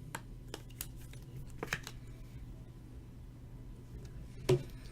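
Trading cards being handled at a table: a few light clicks and slides of card and plastic, then one sharper tap near the end, over a steady low hum.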